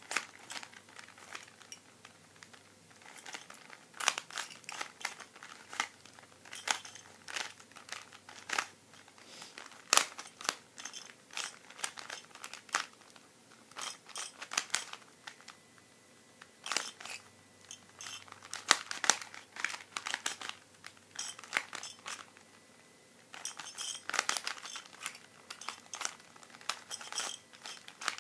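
Plastic Rubik's Cube being turned quickly by hand during a solve: irregular runs of rapid clicks and clacks as the layers snap round, with a few short pauses.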